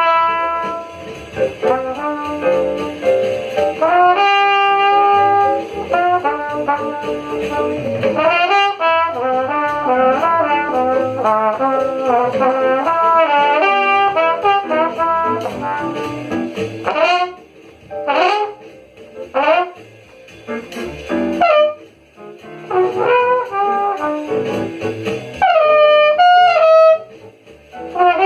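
Jazz played by a brass ensemble of trumpets and trombones, with fast runs of notes and a sparser stretch of short, separate hits about two-thirds of the way through.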